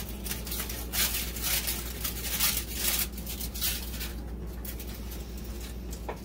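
Aluminium foil being crumpled and folded by hand into a small tray: an irregular run of crinkles and crackles.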